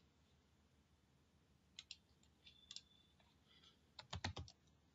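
Near silence broken by scattered faint clicks from a computer mouse and keyboard, with a quick run of about five louder clicks about four seconds in.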